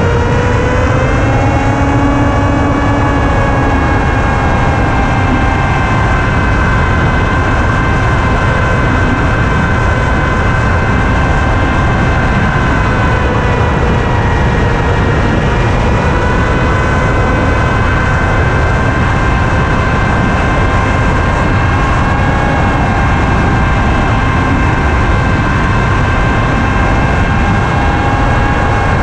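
Radio-controlled model aircraft's motor and propeller whining steadily in flight, heard from the onboard camera with wind rushing over it. The pitch rises in the first couple of seconds, dips briefly about halfway through as the throttle eases, then comes back up.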